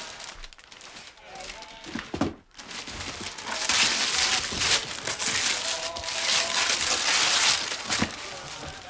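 Paper or packaging being crumpled and torn open. The rustling starts in earnest about three and a half seconds in and runs loud for several seconds.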